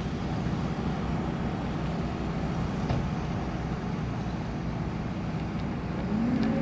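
Steady low rumble of road traffic and vehicles, with no distinct single event standing out.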